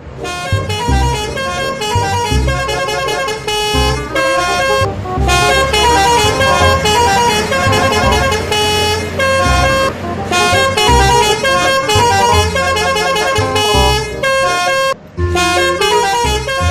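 Telolet bus horn, the Indonesian multi-tone musical horn, playing a fast melody of short stepped notes over a low pulsing beat, with a brief break about two-thirds of the way through.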